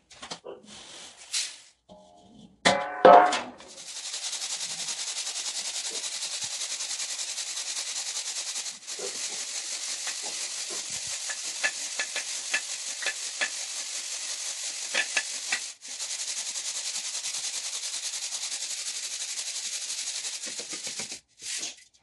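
Whole moong beans rattling steadily in a round steel sieve as it is shaken by hand, with scattered small clicks and two brief pauses. A brief loud knock about three seconds in.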